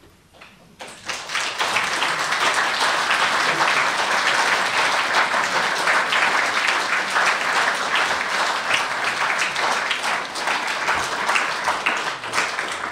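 Audience applauding. It starts about a second in, builds quickly to a steady, dense clapping, and eases off near the end.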